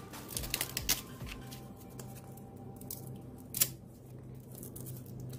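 Hands handling and peeling a strip of purple foam, with rustling and a few sharp clicks; the loudest click comes about three and a half seconds in.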